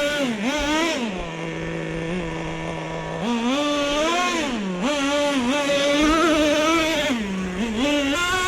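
Traxxas T-Maxx nitro RC truck's small two-stroke glow engine revving up and down with the throttle. It holds a lower, steady pitch for about two seconds near the start, then climbs and falls several times.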